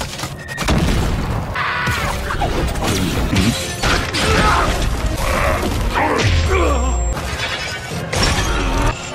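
Animated battle-scene soundtrack: music mixed with crashes, shattering and thuds, with several gliding pitched sweeps and a deep boom about six seconds in.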